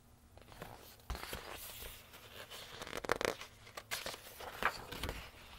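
Handling noise of a large picture book being lowered and set aside: paper and glossy cover rustling, with several sharp knocks and thumps.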